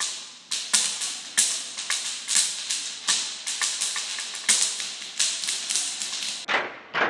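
Designed sound effect: a quick, uneven series of sharp clicks or taps, about three or four a second, each with a short fading tail.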